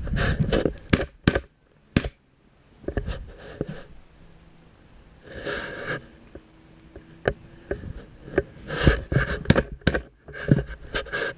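Airsoft gun firing single shots, sharp cracks a few seconds apart, with bursts of rustling and movement noise in between.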